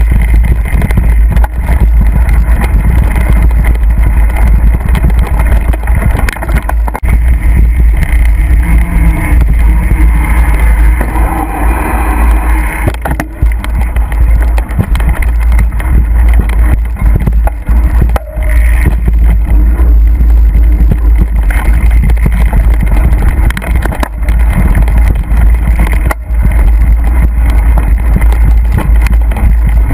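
Wind buffeting the microphone of a camera riding on a mountain bike: a loud, constant low rumble, with frequent knocks and rattles from the bike over rough trail.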